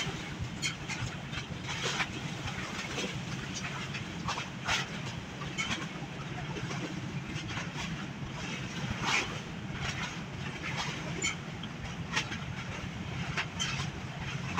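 Large ro-ro ferry's engines droning steadily as it manoeuvres in to dock, with irregular sharp clicks and knocks over the drone.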